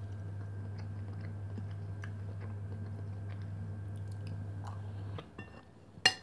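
A person chewing boiled pelmeni dumplings, with small soft mouth clicks, over a steady low hum that cuts off about five seconds in. Near the end comes one sharp clink of the metal fork set down on the plate.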